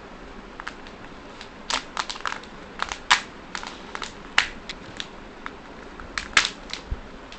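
Thin foil lid of a small plastic cup being peeled off and crumpled between the fingers: irregular sharp crackles and crinkles, loudest about three and six seconds in.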